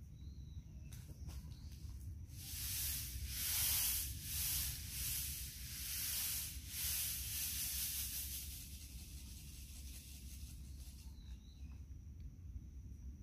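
Rustling, sliding hiss of seeds and a blue plastic seeding plate being shaken and tilted over a plug seedling tray. It comes as a run of several swishes from a couple of seconds in to about eight seconds.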